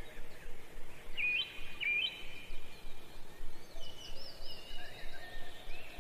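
Birds chirping and whistling, with two quick whistles that step up in pitch about one and two seconds in, over a steady background hiss.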